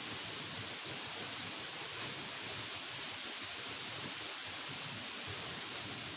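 Steady rushing of a waterfall: an even wash of water noise with no breaks or changes.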